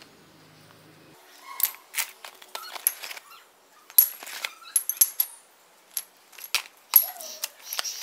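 Handling noises: a plastic parts bag and cardboard box rustling, then several sharp metallic clinks of steel spanners and sockets being set down and picked up on a concrete floor.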